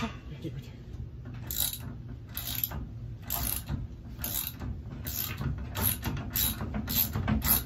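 Ratchet being worked on a strap of the tree stand, a short clicking burst with each stroke, coming a little faster in the second half.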